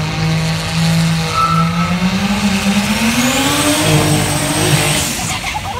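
Drag-race car engine holding a steady note, then rising in pitch as the car accelerates down the strip. A high whistle climbs alongside it from about three seconds in.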